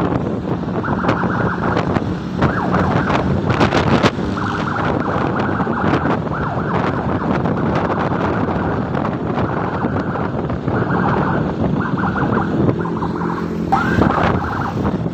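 Motorcycle engine running on the move, with wind buffeting the microphone in gusts, and a brief rising whine near the end.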